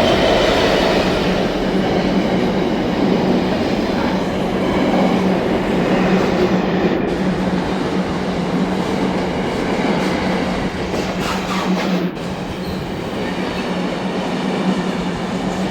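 Diesel train at the station platform, running with a steady rumble and a constant low engine hum.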